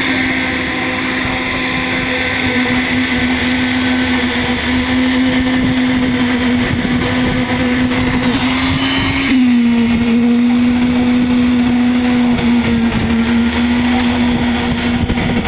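A motor running steadily with a constant hum, dropping slightly in pitch about nine seconds in.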